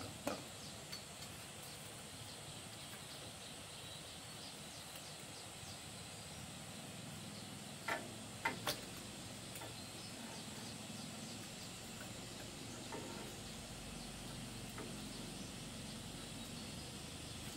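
A few short, sharp metallic clicks and clinks of hand tools working on a small engine, three of them close together about eight seconds in, over a faint steady high-pitched background hiss.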